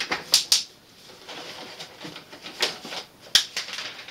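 Parts and small hardware for a 3D printer's enclosure being handled: a handful of sharp clicks and knocks with light rustling between.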